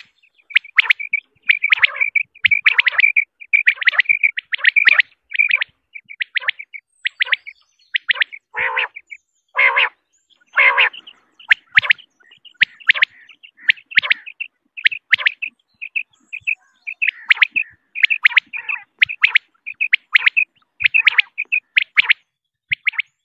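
Quail calling: a rapid run of short, sharp chirping notes, repeated in quick groups, with three longer, rougher calls near the middle.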